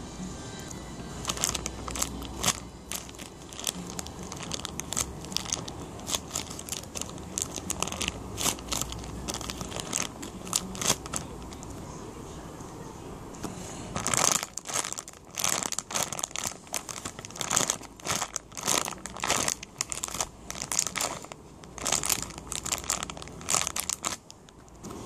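Crinkling and crackling as a squishy toy and its plastic wrapping are handled and squeezed, in two bouts of quick crackles, the second starting about 14 seconds in.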